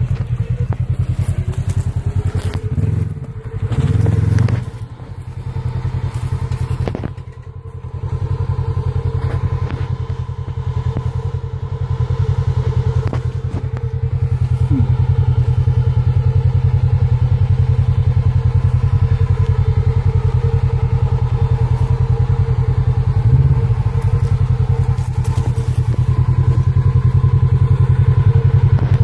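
Polaris RZR XP1000's parallel-twin engine running at low revs as the UTV crawls over rock ledges, with a few thumps in the first several seconds. The engine grows louder as the machine climbs closer, then holds steady.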